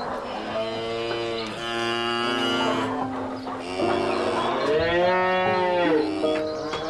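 Cattle mooing: several long, drawn-out moos one after another, the last the loudest, over background music.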